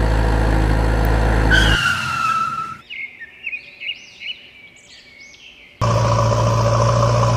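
Heavy vehicle engine running steadily, then cutting off about two seconds in with a short falling squeal. For about three seconds only bird chirps are heard, then the engine sound comes back abruptly.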